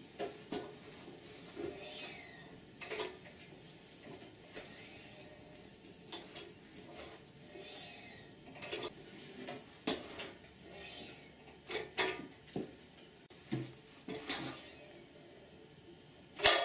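Hydraulic dog grooming table being worked: scattered clicks and knocks from its metal frame and foot-pumped lift, with short rubbing swishes in between. A loud knock comes near the end.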